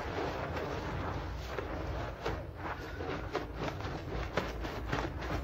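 Hand scrub brush scrubbing a wet, soap-foamed rug: a continuous scrubbing noise at first, breaking about halfway into quick separate strokes, two or three a second, over a low rumble.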